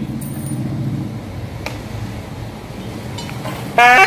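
A low steady rumble, then near the end a nadaswaram, the long double-reed pipe, blares in with a loud, wavering reed note.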